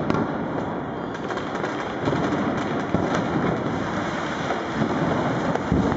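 New Year's Eve firecrackers and fireworks going off in the street all at once: a dense, continuous crackle of countless small bangs with no pauses, a few sharper cracks standing out.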